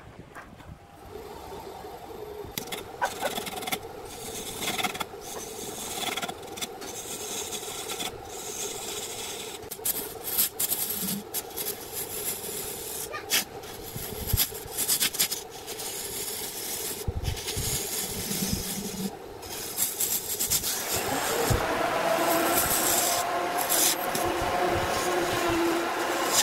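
Wood lathe spinning with a steady hum while a hand-held turning chisel cuts into the wood, giving rough, uneven scraping and rasping with frequent short catches. The cutting grows louder and denser over the last few seconds.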